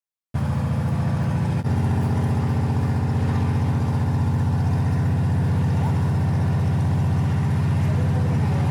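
Propeller jump plane's engine droning steadily, heard from inside the cabin. It starts abruptly just after the start, with a brief break a little over a second in.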